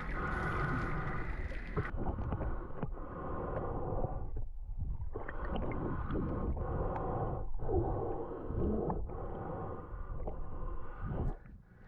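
Water sloshing and gurgling close to the microphone in a shallow spring-fed river, with an uneven rhythm of strokes or splashes about every second or so.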